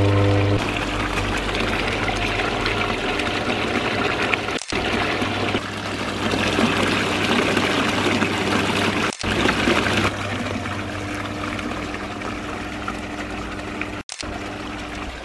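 Water spilling from a stainless steel water blade into a shallow stainless steel trough, a steady splashing pour. The sound cuts out briefly three times, every four to five seconds.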